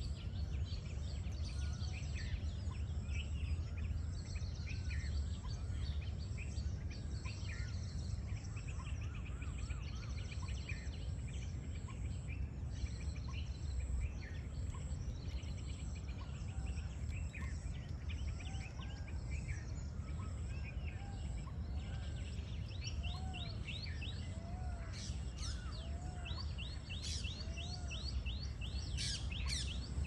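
Small birds chirping and calling over a steady low rumble. In the last third the high chirps come in quicker, busier runs, and for a few seconds a soft low note repeats about once a second.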